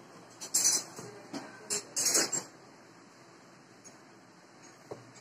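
Metal rolling pin rolling out a stuffed aloo paratha on a floured steel plate: two brief scraping strokes about a second and a half apart, with a few light knocks between them.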